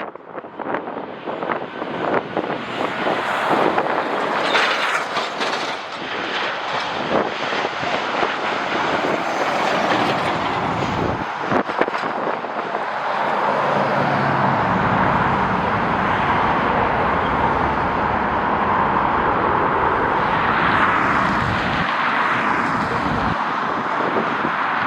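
Gusty wind buffeting the microphone, then from about halfway a jet airliner's engines build into a steady rushing noise with a low rumble beneath.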